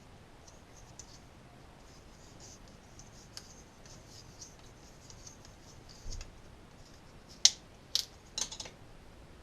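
Old PTFE tape being scraped off the threads of a pipe fitting: soft, uneven scratching, then three or four sharp clicks or knocks near the end.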